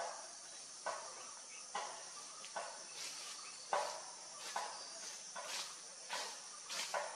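Crunching steps on dry leaf litter, short rustling crunches roughly once a second, over a steady high drone of forest insects.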